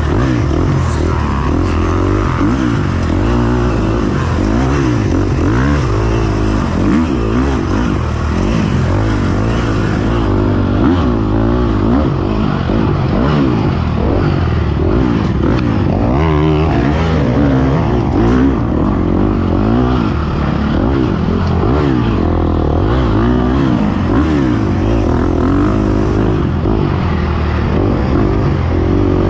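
Dirt bike engine revving up and down continuously as it is ridden hard through the turns of a woods motocross track, heard from the rider's camera.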